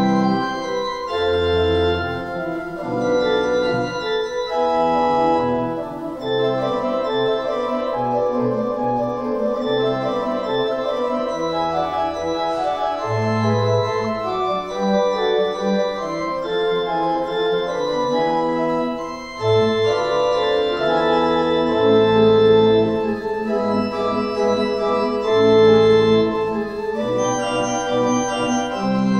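Church organ playing full held chords over a bass line that steps from note to note.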